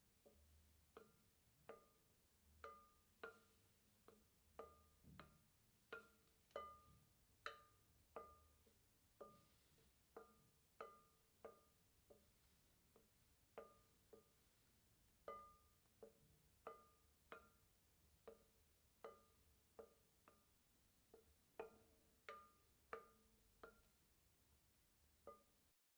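Faint background music of short plucked string notes, about one to two a second, cutting off abruptly near the end.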